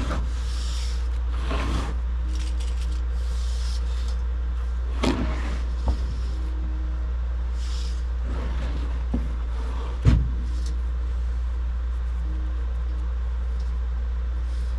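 A steady low engine rumble, with a few brief noisy swooshes and a sharp knock about ten seconds in.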